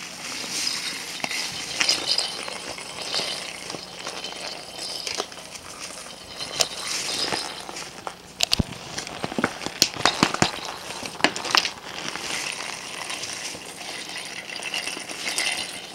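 Thin plastic shopping bag crinkling and rustling as a ferret burrows and digs into it, with a cluster of sharp clicks and rattles from the handled toy balls and their plastic packaging between about six and eleven seconds in.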